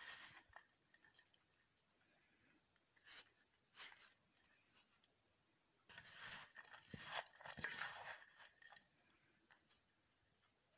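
Faint rustling and scraping of hands kneading a dry, crumbly herbal powder with a little honey into a stiff dough in a steel bowl. It comes in short bursts, with a longer stretch about six to eight and a half seconds in.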